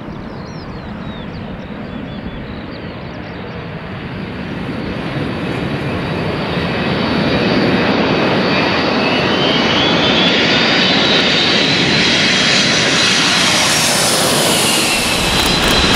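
Boeing 747-400's four turbofan engines on final approach, growing steadily louder as the jet closes in, then holding loud as it passes low overhead. Near the end the high engine whine slides down in pitch as the aircraft goes by.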